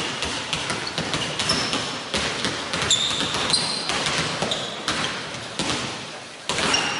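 Several basketballs dribbled at once on a hardwood court: irregular, overlapping bounces, with short high-pitched sneaker squeaks now and then.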